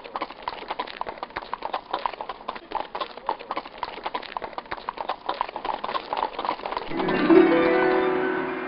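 Horse hooves galloping, a rapid uneven clatter of clip-clops. About seven seconds in, a gong is struck and rings on, slowly fading.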